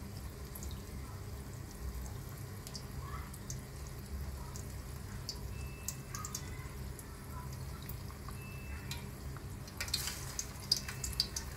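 Nargisi koftas frying in a pan of hot oil: a quiet, steady sizzle with scattered small crackles over a low hum. The crackling grows busier near the end as another egg-white-coated kofta is lowered into the oil.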